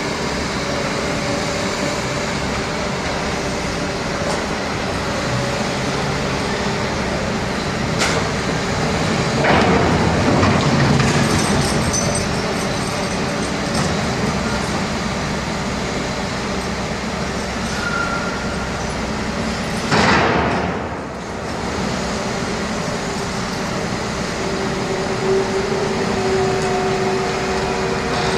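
Heavy construction machinery running steadily at an excavation site, with a louder swell about ten seconds in and a short, loud noise about twenty seconds in.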